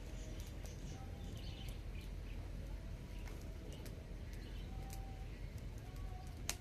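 Faint bird chirps and short calls over a steady low background noise, with one sharp click just before the end.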